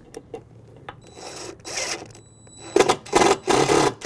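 Cordless drill running against the trailer's side: a quieter run of about a second with a faint high motor whine, then three short, louder bursts near the end.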